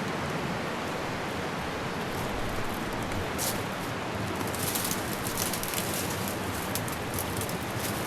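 Steady rush of a fast mountain river. From about two seconds in, scattered short rustles and crackles sound over it.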